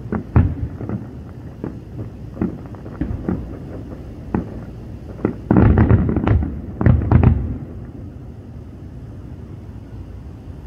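Aerial fireworks bursting in a string of sharp booms. The booms come thickest and loudest a little past halfway, then thin out to a quieter stretch near the end.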